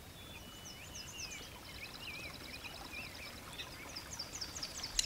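Songbirds singing faintly over a soft outdoor hush. There is a fast trill of evenly repeated notes, and wavering whistled phrases from more than one bird. A sharp click comes just before the end.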